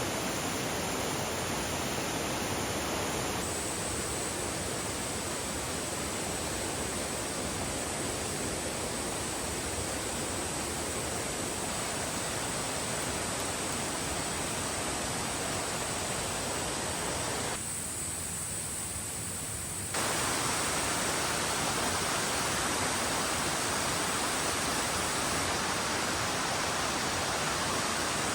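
Valley stream water rushing steadily over rocks, with a thin, high, steady drone of insects above it. The rush drops for a couple of seconds about two-thirds of the way through, then returns louder.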